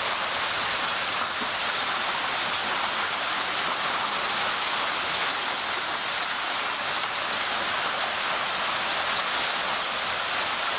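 Hailstorm: hailstones falling thickly onto a lawn and a plastic lattice path, a dense, steady hiss of many small impacts.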